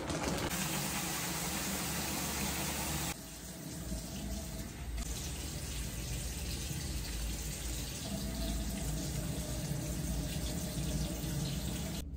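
Water running from a bathroom sink tap while hands splash and wash a face. The running water grows duller and a little quieter about three seconds in.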